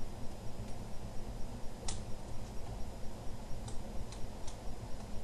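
A few sharp little clicks of a small screwdriver working the tiny bracket screws on a laptop's screen assembly, the loudest about two seconds in and a quicker cluster of three near the end, over a low steady rumble.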